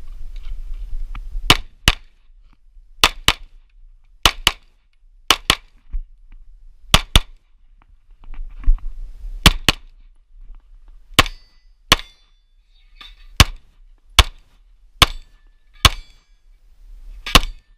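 Pistol shots fired rapidly in close pairs, then in more widely spaced shots, about nineteen in all.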